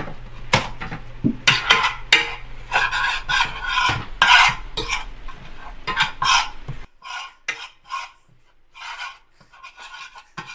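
A spoon scraping and stirring in a cooking pot in quick repeated strokes, browning curry in the pan. A low background hum stops abruptly about seven seconds in, and the strokes go on more quietly after it.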